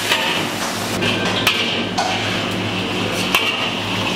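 Beaten egg sizzling in oil in a hot wok, a steady hiss, with about four sharp clicks of the metal spatula against the wok.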